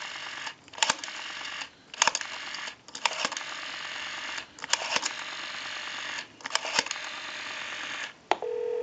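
Rotary dial of a Western Electric Trimline telephone being dialed: six digits in a row, each a click followed by about a second of rattly noise as the dial spins back, with short gaps between. Near the end a click, then the called line's steady ringback tone begins.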